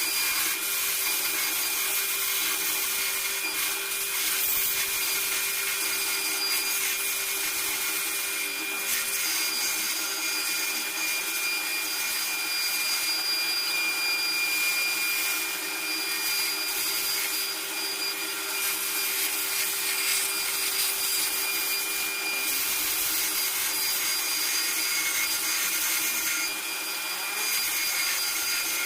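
Electric power tool running steadily at one speed while it works wood, a constant motor whine over a rushing hiss.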